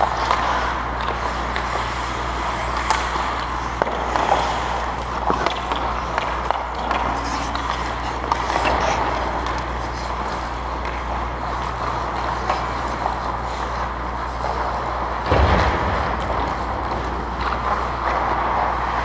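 Ice hockey play heard from the goal: skate blades scraping the ice, with scattered sharp clacks of sticks and puck over a steady low hum in the rink. A heavier knock comes about fifteen seconds in.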